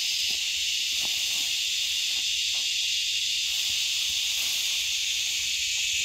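Steady, high-pitched drone of an insect chorus, with faint rustling as a pile of sweet potato vines is lifted and shaken.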